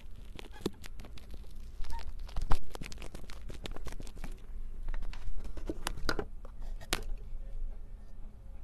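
Utility knife blade cutting into the rubbery skin of a squishy stress ball: a run of small crackling clicks and tearing sounds, with one louder knock about two and a half seconds in. The clicking thins out near the end.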